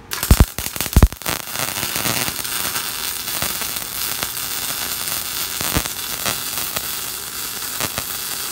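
MIG welding arc on thick steel plate, fed from a Fuji MIG-270A's separate wire feeder at about 150–160 amps for deeper penetration. It starts with a few loud pops as the arc strikes, then settles into a steady crackling sizzle, which the welder takes for a well-adjusted arc.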